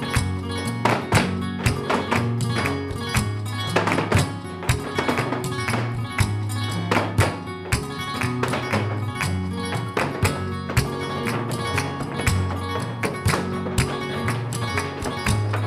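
Flamenco music with sharp percussive strikes throughout, the heel-and-toe footwork of dancers in flamenco shoes on a wooden floor.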